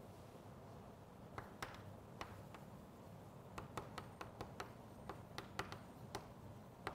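Chalk writing on a blackboard: a string of faint, irregular taps and short scratchy strokes as the letters go down.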